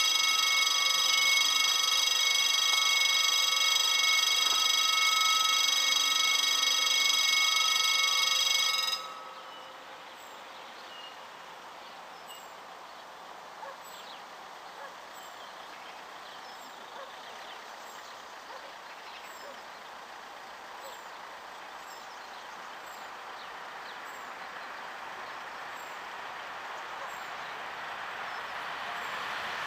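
Level-crossing warning bell ringing with a steady electronic tone for about nine seconds, then cutting off suddenly. Afterwards birds chirp faintly while the noise of an approaching train slowly grows louder.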